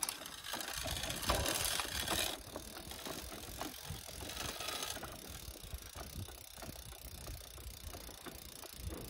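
Bicycle rear wheel, its inner tube removed, spun by hand with the chain turning: a mechanical whir, loudest for the first two seconds, then a steady patter of small ticks and chain rattle as it keeps turning.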